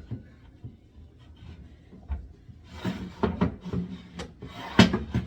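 A can organizer rack being set and slid into a kitchen cabinet: scattered knocks and rubbing, a few faint ones at first, then a busier run of clatters from about three seconds in with the loudest knock near the end.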